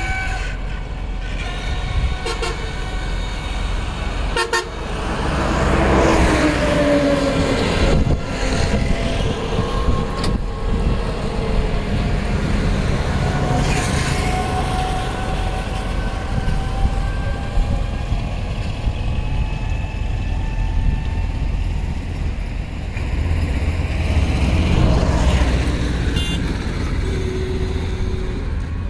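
Road traffic on the bridge: a steady rumble of passing vehicles, with horns tooting now and then and the pitch of a passing vehicle falling about six seconds in.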